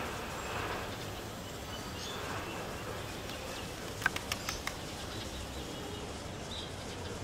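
Outdoor ambience: a steady background hiss with faint bird chirps, and a quick run of about five clicks a little after four seconds in.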